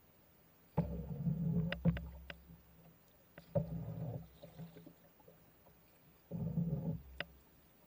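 A paddle working a small boat through river water: three strokes about two and a half to three seconds apart, each a short watery surge with a few sharp knocks mixed in.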